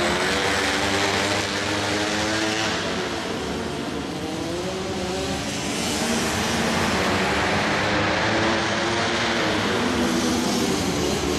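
Several flat-track racing motorcycles and quads running together on a dirt oval. Their engines rev up and ease off, with several engine notes overlapping, and there is a slight lull about four seconds in.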